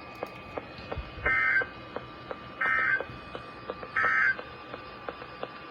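Three short bursts of Emergency Alert System end-of-message data tones, buzzy warbling bursts about a second and a half apart, marking the end of a NOAA Weather Radio severe thunderstorm warning. Faint regular ticking sits under them.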